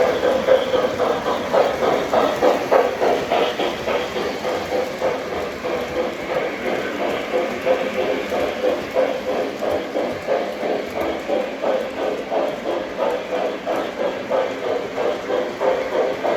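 O gauge model train running on its track: a steady motor hum with a fast, even pulsing of a few beats a second.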